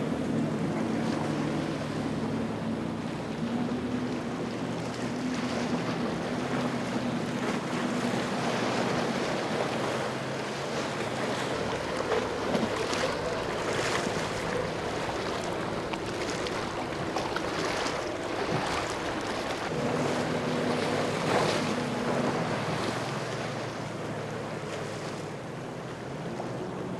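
Boat engines running through choppy water, their pitch shifting now and then, with waves splashing against the hulls and wind on the microphone. Splashes come repeatedly through the middle of the stretch.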